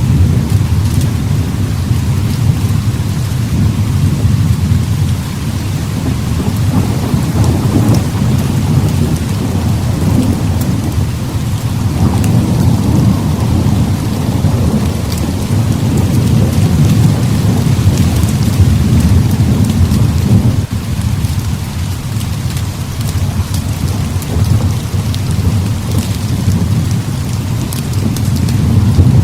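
Heavy rain hissing steadily, under a continuous deep rolling thunder rumble that swells and eases and briefly drops away about two-thirds of the way through. Scattered sharp ticks sit on top of the rain.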